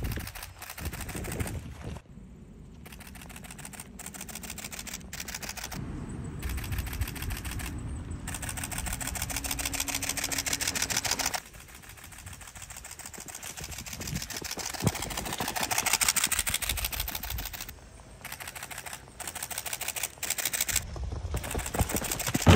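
Camera shutter firing in rapid continuous bursts, a fast even clicking that swells and fades and breaks off briefly a few times, over a low rumble.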